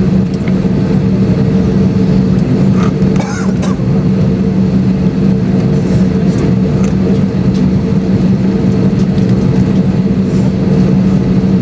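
Steady hum inside an Airbus A321-200 cabin: an even rush of air with a low drone that holds one pitch throughout, from the airliner's air-conditioning and engines.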